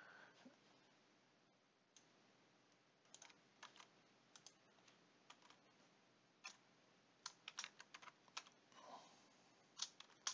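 Faint computer keyboard typing: short irregular runs of keystrokes with pauses between them.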